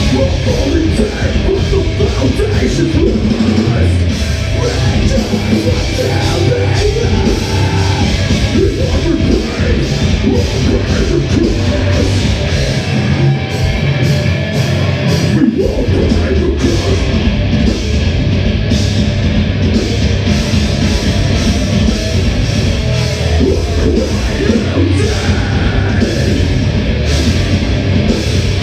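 Live heavy rock band playing loud, with guitars, bass and drums. About halfway through, the bottom end drops away for a couple of seconds, then the full band crashes back in.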